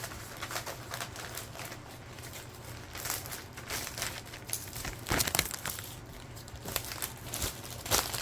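Plastic film crinkling and rustling irregularly as it is handled, the protective plastic cover of a diamond painting canvas, with louder crackles about five seconds in and near the end.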